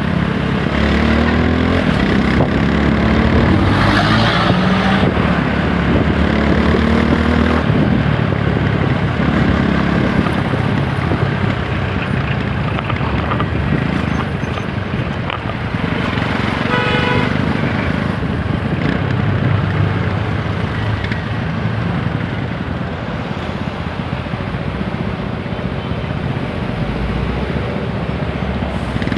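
TVS Apache RTR 160 4V single-cylinder engine running under way in traffic, its pitch climbing through the gears early on, with wind rushing past the microphone. A vehicle horn toots briefly a little past halfway.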